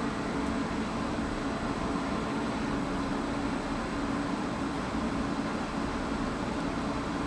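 Steady mechanical drone at a railway station: a low hum with an even hiss over it, holding the same level throughout.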